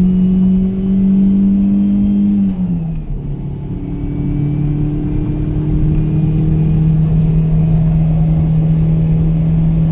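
Toyota Corolla EE100's four-cylinder engine pulling hard under full acceleration, heard from inside the cabin. Its note climbs slowly, drops sharply about two and a half seconds in at a gear change, then climbs again.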